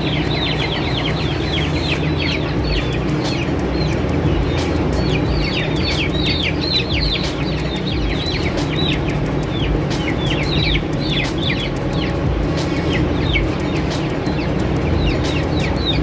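A flock of broiler chickens peeping and cheeping: many short, high calls that fall in pitch, overlapping without a break, over a steady low hum.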